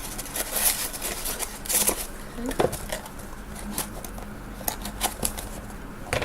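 Items and packaging being handled, with scattered sharp clicks, taps and rustles throughout.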